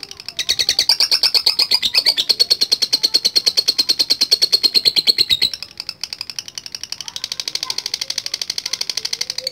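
Lovebird giving its long rapid chattering trill (ngekek panjang), the sought-after sign of a bird in full song. It sings one loud stretch, breaks off briefly about five and a half seconds in, then starts a second, slightly quieter trill.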